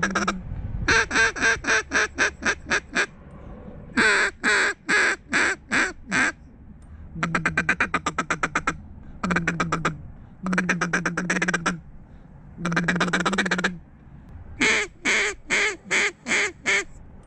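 A hand-blown duck call sounding about seven runs of rapid quacks, each run lasting one to two seconds, with short pauses between runs.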